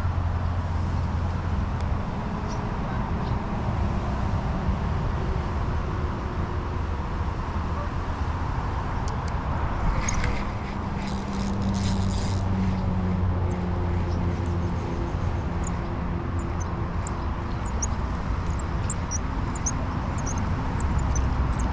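Steady low rumble of wind on the microphone, with a short burst of handling clatter about halfway through and a run of short, high chirps in the last few seconds.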